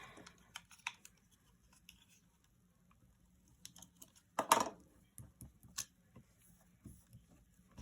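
Quiet handling of sticker sheets and planner paper: scattered small clicks and light rustles, with one louder, short rustle about four and a half seconds in.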